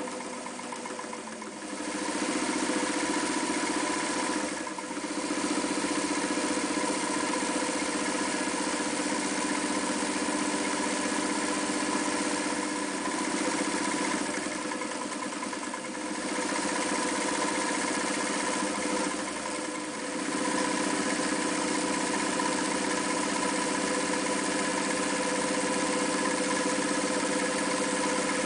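A restored Elna 31C Special electric sewing machine sews through fabric: its motor and needle mechanism run steadily with a fast, even stitching rhythm. It slows briefly several times between runs.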